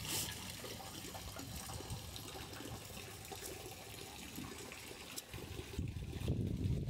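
Water trickling steadily into a fish tank, with a louder low rumble near the end.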